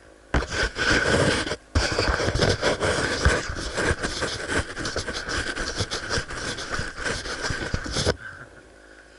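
Loud scraping and rustling right against the microphone, with irregular crackles, like something rubbing or brushing the camera. It starts suddenly, breaks off for a moment about a second and a half in, and cuts off abruptly near the end.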